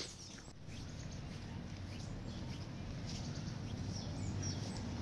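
Outdoor street ambience: a steady low rumble, with a few faint bird chirps about four seconds in.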